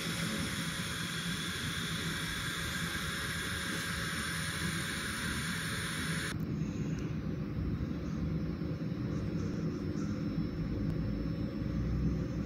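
Automatic construction mesh welding machine running, a steady mechanical rumble and hum, with a bright hiss over it that stops suddenly about six seconds in.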